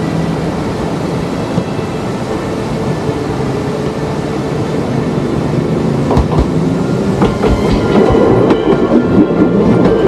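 Odakyu 1000 series electric train approaching and running past, its rumble growing steadily louder. From about six seconds in, its wheels clack over the rail joints as it comes close.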